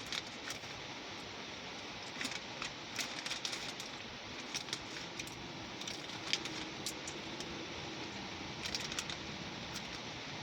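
Plastic candy packaging being handled: scattered light clicks and crinkles over a steady hiss.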